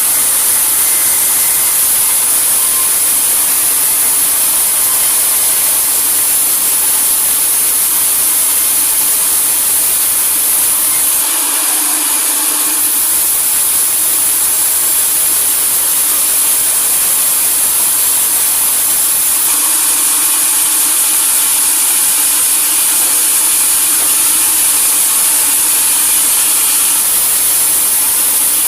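Sawmill saw running steadily, a loud, even, hissing noise that dips briefly about twelve seconds in.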